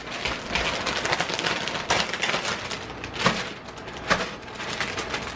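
Plastic snack bag of cheese curls crinkling and crackling as it is squeezed and handled, with a few sharper crackles.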